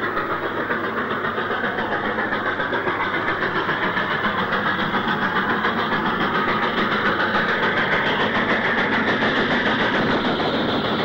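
LMS Stanier 8F 2-8-0 steam locomotive working hard uphill on almost full regulator with a heavy iron ore train: a steady run of even, rhythmic exhaust beats.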